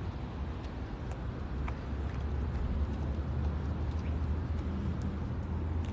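A steady low outdoor rumble, with a few faint scuffs of footsteps on gritty concrete.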